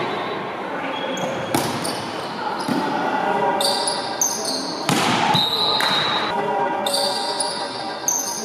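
Volleyball play in a sports hall: a couple of sharp ball strikes, about one and a half and five seconds in, among short high squeaks of shoes on the court and echoing voices of players and spectators.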